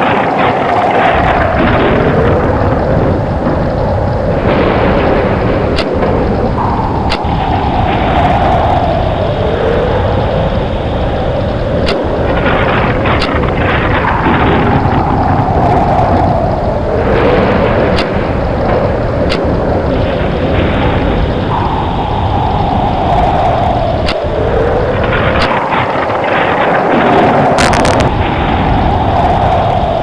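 Tornado wind sound effect: a loud, continuous roar with a deep rumble under a howling whine that swoops down and back up in pitch about every five seconds, with scattered sharp cracks and a brief hiss near the end.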